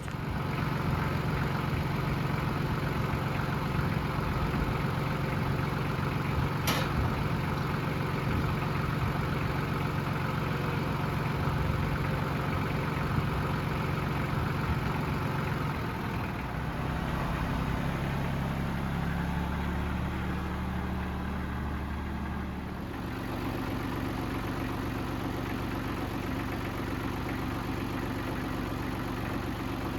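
A vehicle engine running steadily. Its note shifts about halfway through and changes again a little later.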